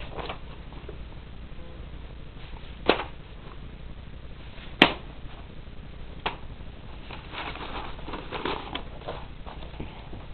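Sheets of drawing paper being handled and swapped: a few sharp clicks, the loudest about three and five seconds in, then soft rustling near the end, over a low steady hum.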